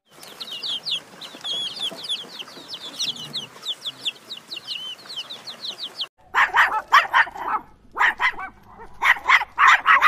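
A flock of young chicks peeping, many high-pitched cheeps overlapping. About six seconds in this cuts off and a dog barks in quick runs of short barks.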